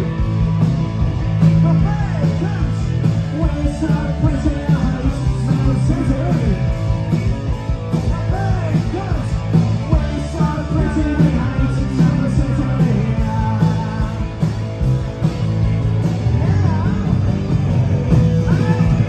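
Punk rock band playing live, with electric guitars, bass and drums under a man singing into a microphone, and cymbals struck on every beat.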